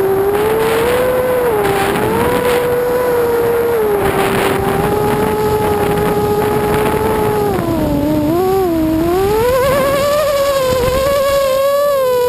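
Brushless motors and propellers of an ImmersionRC Vortex FPV racing quadcopter whining in flight, the pitch sliding up and down with the throttle, dipping about eight seconds in and climbing to its highest a couple of seconds later. Heard from the quad's onboard camera, with wind rush over the microphone.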